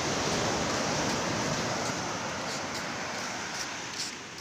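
Steady wash of sea surf mixed with wind buffeting the microphone, strongest in the first second or so and easing off toward the end, with a few light clicks.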